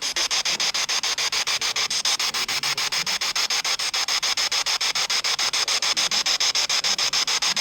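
Spirit box sweeping through radio stations: a steady hiss of static chopped into short pieces about eight to nine times a second.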